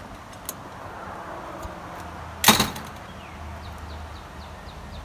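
Pop-up camper's spring-loaded one-piece entry door swinging shut on its own and slamming against the frame with a loud sharp bang about two and a half seconds in, with no damper to slow it. A small click comes about half a second in.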